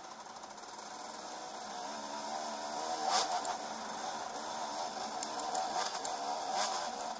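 2008 KTM 300 EXC's two-stroke single-cylinder engine revving up and down as the enduro bike is ridden along a dirt trail, with two sharp knocks about three seconds in and again near the end.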